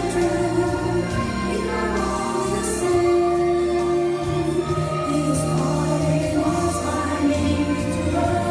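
Christian worship song: a group of voices singing with instrumental accompaniment, in long held notes.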